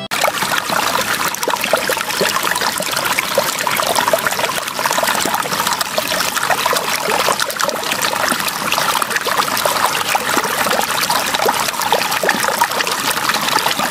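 A thin stream of water pouring from a clear plastic tube into a shallow plastic tub that already holds water: a steady trickle.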